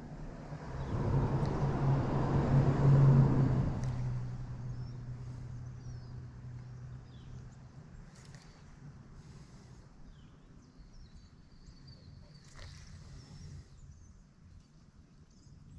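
A vehicle passing: a low engine hum over tyre noise swells about a second in, is loudest around three seconds, and fades away over the next few seconds.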